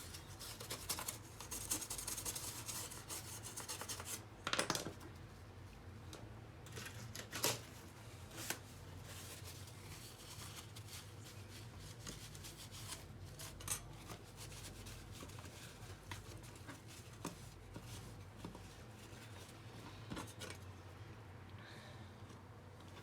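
Faint hand-cleaning of a disassembled laptop part, rubbing and wiping it: a dense scrubbing for the first few seconds, then occasional softer rubs with a few light clicks and knocks.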